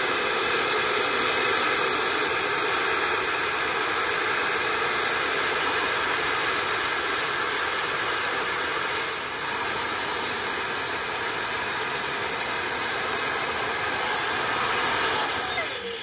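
Homemade turbojet burn barrel, a 6.0 Powerstroke diesel turbocharger feeding a wood-fired steel tank, running under boost: a steady jet-like rush with a high turbo whine. The whine drops and the noise fades near the end as the turbo spools down.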